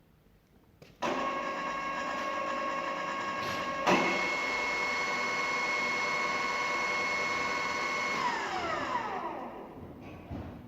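Donau DR32 radial drilling machine's spindle drive starting up with a steady gear whine. About three seconds later it clicks to a higher speed, the whine jumping to about double the pitch. It is then switched off, and the whine falls steadily in pitch as the drive runs down.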